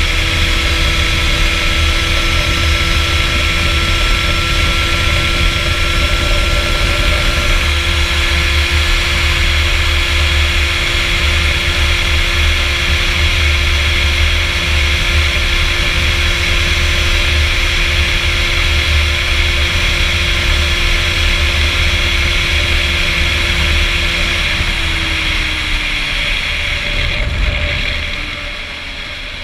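Rieju MRT SM supermoto's engine held at steady high revs under way, with wind rumbling on the microphone. Near the end the revs fall away and the sound dies down.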